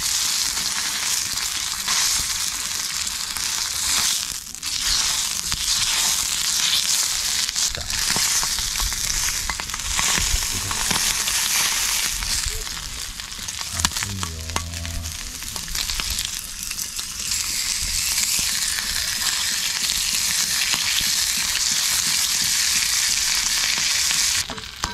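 Thick-cut bacon sizzling steadily in a hot black pan, with now and then a sharp click of tongs and a knife against the pan as it is cut.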